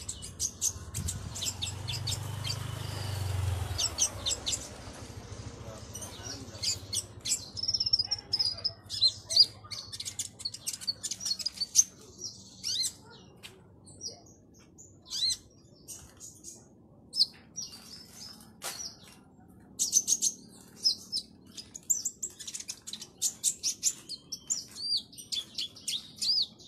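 Caged kolibri ninja (Van Hasselt's sunbird) singing in the lively, worked-up state birdkeepers call ngobra: a fast run of sharp, high-pitched chirps and short twittering trills. A low rumble sits under the first few seconds.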